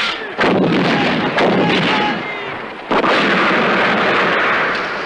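Artillery blasts in a war film's soundtrack: three sudden heavy booms, about half a second, a second and a half and three seconds in, each trailing off in a long rumble.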